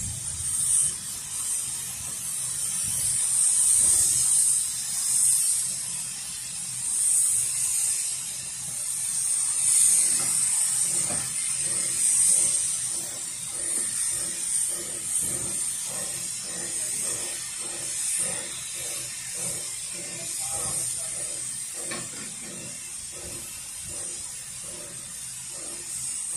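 A stationary steam locomotive hissing steam, the hiss swelling and easing every second or two. About halfway through, a softer rhythmic pulsing of roughly two beats a second joins it.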